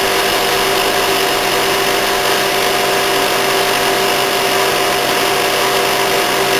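Speedie 5000 BTU window air conditioner running on cooling: compressor humming steadily under the rush of its Fasco fan motor and blower, an even, unchanging drone.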